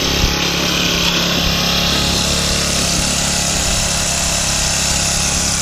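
Small engine running steadily at an even speed, with a constant hum and a hiss.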